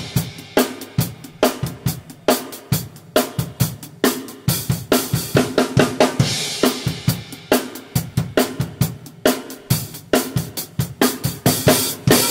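Acoustic drum kit with HHX cymbals played solo: a steady pop groove of kick, snare and hi-hat, with a cymbal crash about halfway through. A loud accented crash hit near the end rings on.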